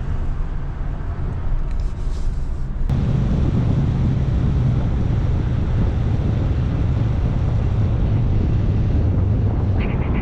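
Road noise of a vehicle driving, a steady low rumble that turns suddenly louder and rougher about three seconds in.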